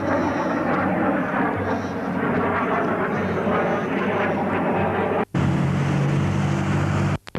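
A steady low mechanical drone under a rushing noise. About five seconds in it cuts off abruptly and resumes as a steadier, higher hum, then cuts off again just before the end.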